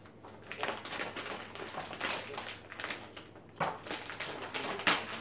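A crinkly plastic chip bag being handled and pulled open, with an irregular run of crackles and two sharper rips, about three and a half and five seconds in.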